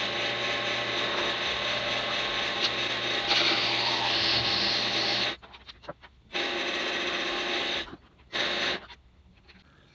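Wood lathe running with a hand tool rubbing against the spinning wooden handle. It stops about five seconds in, then runs again in two shorter stretches as a hole is drilled into the handle's end from the tailstock.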